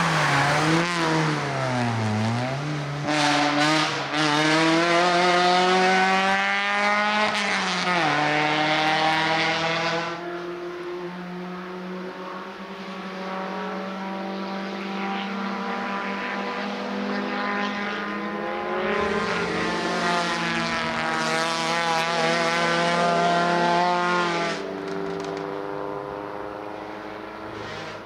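Opel Kadett GSi race car's four-cylinder engine driven hard on track, its pitch falling and rising repeatedly as it brakes, shifts gear and accelerates past. It is quieter and steadier for a stretch in the middle.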